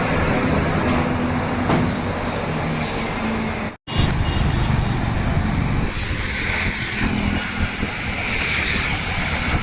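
Road traffic and vehicle engine noise, with a brief total dropout just under four seconds in.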